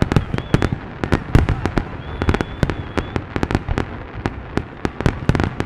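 Fireworks exploding in a rapid, irregular barrage of sharp cracks and pops, several a second, with a thin whistle briefly heard over them partway through.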